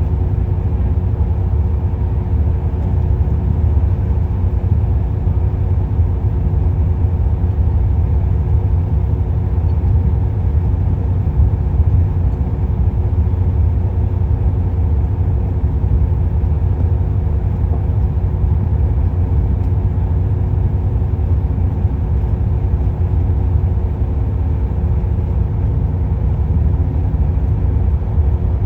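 Kobelco excavator's diesel engine running steadily: a low drone with a steady hum above it.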